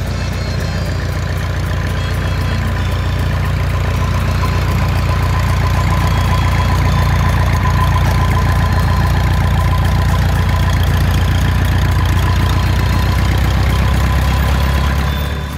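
Cessna 150's four-cylinder Continental O-200 engine and propeller running steadily at idle while taxiing: a low drone with a thin steady whine above it.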